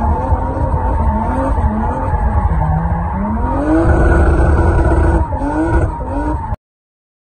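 BMW 3 Series spinning donuts: the engine is held high in the revs, its pitch swinging up and down as the throttle is worked, over a steady high tyre squeal. The revs climb sharply about three seconds in, and the sound cuts off suddenly near the end.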